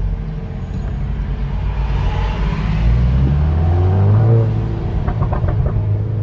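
Seat León Cupra's engine and exhaust running, revved up briefly about halfway through.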